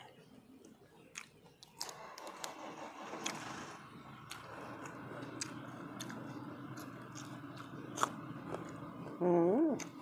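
Close-up chewing and crunching of raw leafy vegetables, with scattered crisp clicks from the mouth. A steady motor hum comes in about two seconds in and carries on, and a short voiced sound comes near the end.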